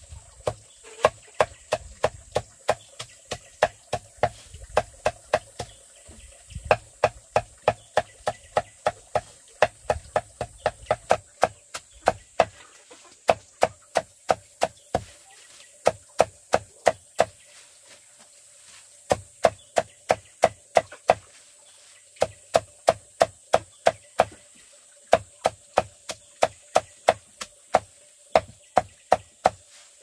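A large machete-like blade chopping a pile of leafy green vines in quick, even strokes, about three a second. In the second half the chopping stops briefly every few seconds.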